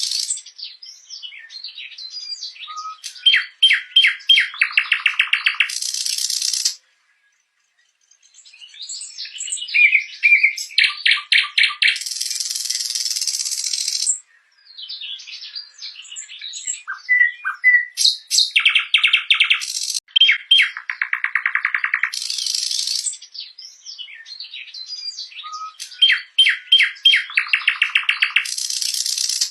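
Nightingale singing: phrases of rapid repeated notes and trills, short whistles and buzzy high notes, separated by brief pauses.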